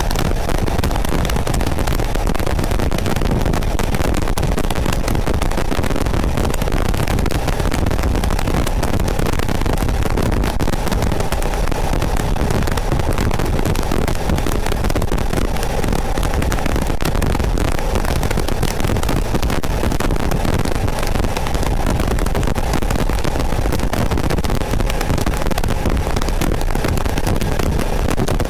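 Porsche 914's 2.0-litre air-cooled flat-four engine running steadily at highway cruising speed, mixed with wind and road noise through the open targa top.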